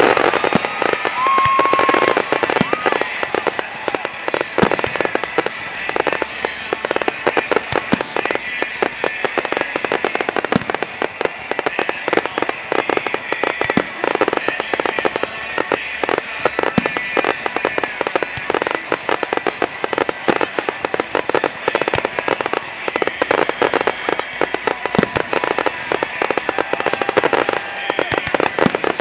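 Fireworks display going off in a dense barrage: rapid cracks and pops, many each second, one on top of the next.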